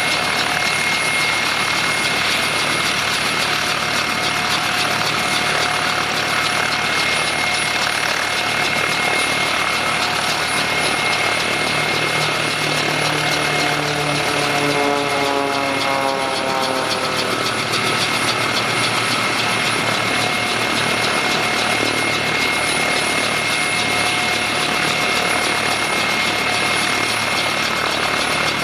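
Bell 204B helicopter's Lycoming T53 turboshaft running at ground idle with the main rotor turning: a steady rush of turbine and rotor noise with a constant high whine. A falling tone sweeps down midway through.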